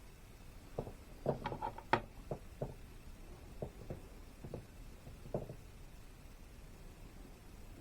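Light taps and clicks of small plastic objects being handled, about a dozen irregular ones, bunched together in the first two seconds and then thinning out.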